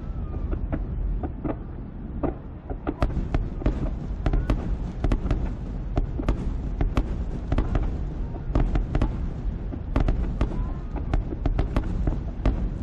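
Aerial fireworks shells bursting in rapid succession in a finale barrage: a dense run of sharp booms and cracks, often several a second, over a continuous low rumble.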